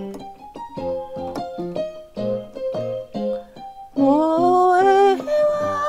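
Keyboard playing a pop accompaniment, chords over a bass line in separate struck notes. About four seconds in a woman's voice comes in singing, sliding up into a held note.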